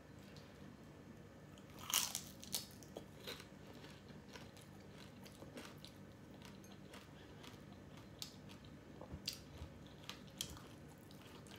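Close-up crunching and chewing of crispy batter-fried shrimp, in sharp irregular bites. The loudest crunch comes about two seconds in, and a few more come close together near the end.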